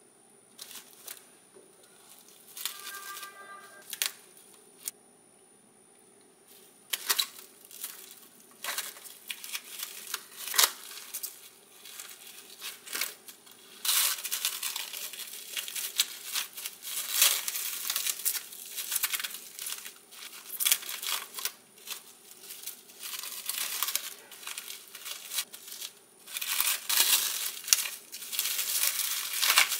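Plastic cling film crinkling and crackling as it is pulled and pressed tightly around a sandwich by hand. Sparse clicks for the first several seconds, then continuous crinkling from about seven seconds in, busiest in the second half.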